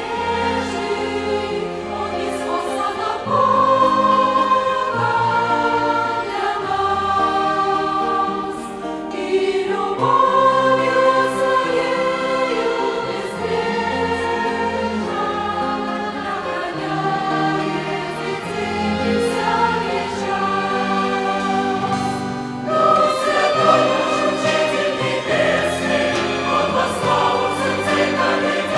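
Church choir singing a Russian hymn in held chords, accompanied by a violin ensemble.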